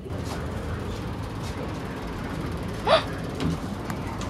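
Steady outdoor background noise with a low rumble, and one short, sharp rising chirp about three seconds in.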